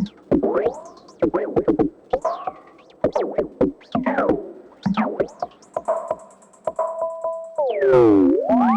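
RYK Modular Night Rider synth module playing electronic percussion: a quick, irregular run of short pitched hits, each with a fast pitch sweep. Near the end it changes to a sustained tone that glides down and back up.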